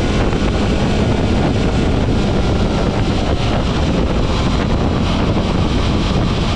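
Steady wind noise buffeting the microphone of a fast-moving onboard camera, over a low rumble of road and engine noise at speed.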